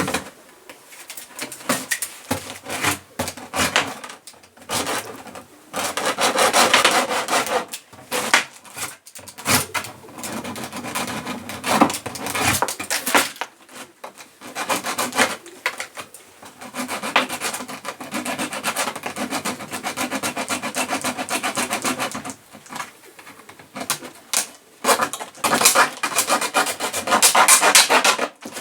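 A blade sawing through the plastic of a 20-litre water bottle, cutting off its upper part: runs of back-and-forth strokes broken by short pauses.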